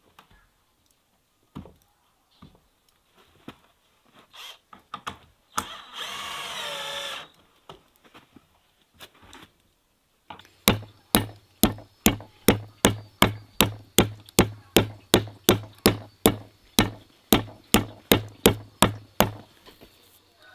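Steady kitchen chopping on a wooden board, about two and a half sharp strokes a second with a low thud to each, running for some nine seconds in the second half. Before it come scattered light knocks and a brief rasping whir about six seconds in.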